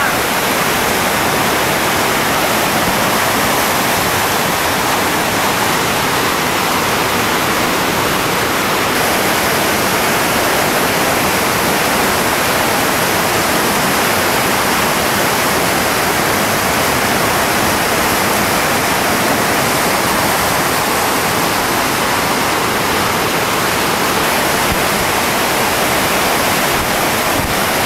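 Whitewater rapid: river water rushing and churning over boulders in a steady, unbroken roar of noise.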